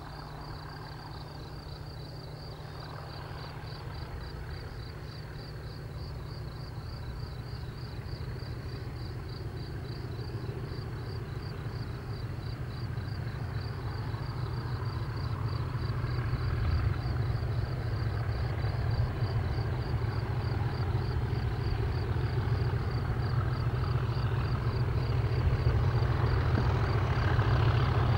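Class 37 diesel locomotives, with English Electric V12 engines, working a hopper train and getting steadily louder as they approach. Crickets chirp in a fast, even pulse throughout.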